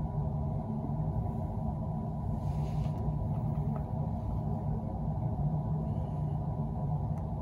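Steady low rumbling hum of background noise, with a brief faint rustle about two and a half seconds in.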